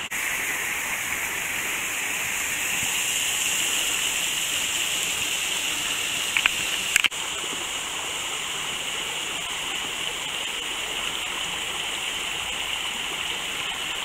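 Small rocky mountain stream rushing and splashing over boulders, a steady hiss. A few sharp clicks about six and a half to seven seconds in.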